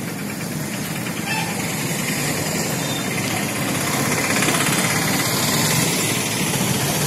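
An engine running steadily, with a dense rumbling hiss that grows slightly louder.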